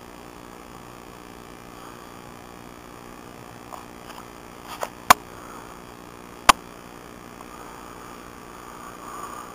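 Steady background hiss with a faint hum, broken midway by two sharp clicks about a second and a half apart, with a few fainter clicks just before them.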